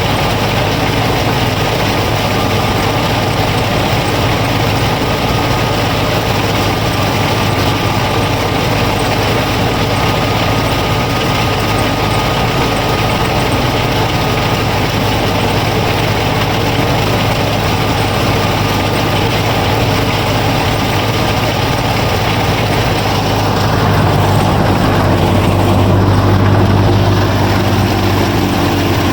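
Steady engine running, like a tractor idling. From about 24 s in it gets deeper and a little louder.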